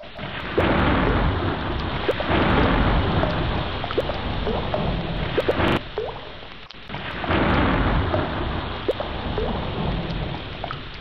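Heavy tropical rain with rolling thunder. The downpour swells suddenly louder about half a second in and again around seven seconds in, after a brief lull, with a deep rumble under it and scattered drops plinking.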